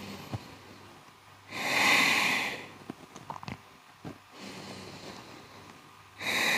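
A person's deep breaths through the nose, the slow breathing of a yoga stretch: one lasting about a second, starting about a second and a half in, and the next starting near the end. Faint small clicks in between.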